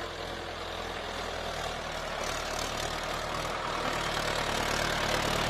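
Tractor engine running steadily at idle, slowly growing louder.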